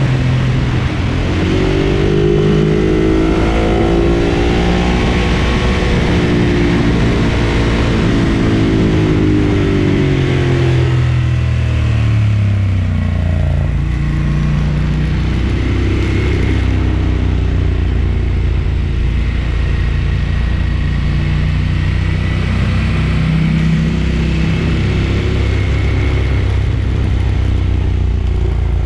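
Ducati Monster 1200 S L-twin engine under way. Its pitch climbs for the first several seconds, then falls away as the bike slows about eleven seconds in. After that it runs at a steadier pitch with a couple of brief rises in revs.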